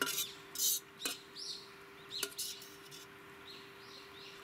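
Spoon clinking and scraping against a metal camping pot while eating from it: three sharp clinks about a second apart, with a short rustling scrape between the first two. A bird chirps a few times in the background, once about a second and a half in and again near the end.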